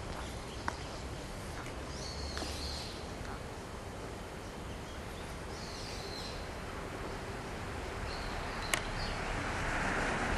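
Outdoor ambience: a steady background hum with birds chirping every few seconds. Two sharp clicks are heard, one under a second in and one near the end.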